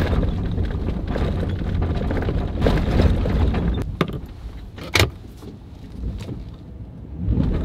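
Pickup truck cab while driving on a snowy road: steady low engine and road rumble that eases off after about four seconds, with a few sharp knocks and rattles, the loudest about five seconds in.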